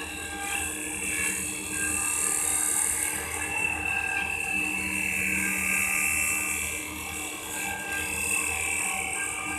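CNC wood lathe running: a steady high motor whine with a hiss over it.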